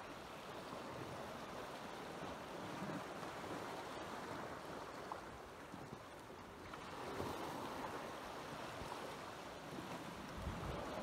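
Small waves washing steadily against a rocky shore, with some wind on the microphone.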